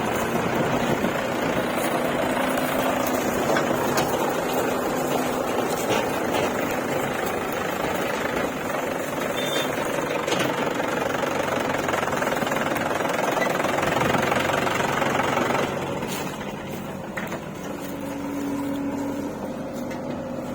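Heavy machinery engine running steadily with a rough, rattling mechanical noise. It eases off and gets quieter about sixteen seconds in.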